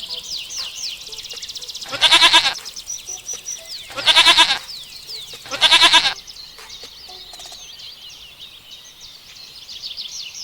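Goat bleating three times, each call about half a second long with a quavering pitch, over continuous high, rapid birdsong chirps.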